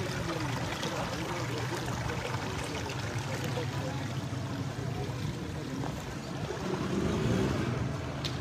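Motorboat running steadily through floodwater, its motor a constant low hum under the wash of water.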